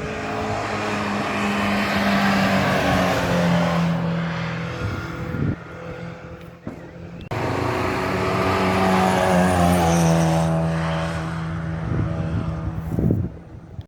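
Historic racing cars accelerating hard past on a hillclimb, one after the other: each engine revs high, its pitch rising and falling through the gear changes as the car goes by.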